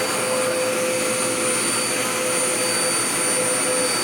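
Dirt Devil Power Max vacuum cleaner running steadily: a rush of air under a steady motor whine.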